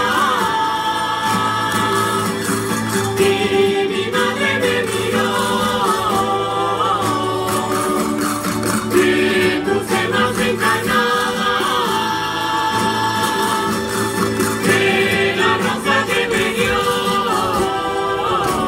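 Live Murcian folk music: voices sing a verse over a plucked-string folk band, with a rhythmic clatter of percussion running through it.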